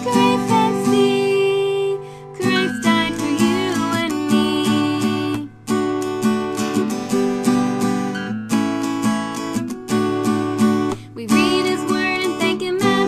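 Acoustic guitar strummed in a steady rhythm, an instrumental passage of a song, with short breaks in the strumming every few seconds.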